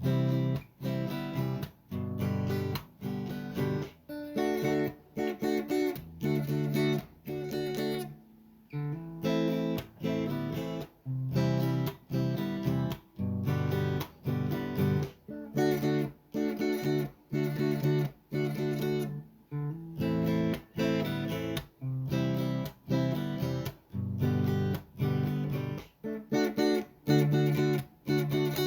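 Background music: rhythmic acoustic guitar strumming.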